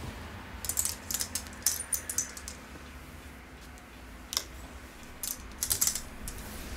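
Clothes hangers clicking and scraping on a clothing rail as garments are pushed along and lifted, in short clusters of sharp clicks: a few about a second in, more around two seconds, and again near the end, over a faint steady room hum.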